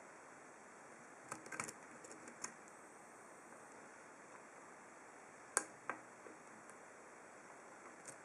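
A few small, sharp clicks of a hook pick working the pins of an ASSA Ruko 2 padlock's 7-pin core, over faint hiss. There is a short cluster about a second and a half in, and the loudest click comes a little past halfway.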